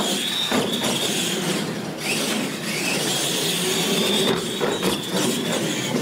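Battery-electric R/C monster trucks racing flat out: a high motor and gear whine that dips about two seconds in and climbs again, with a few knocks as the trucks land off the ramps.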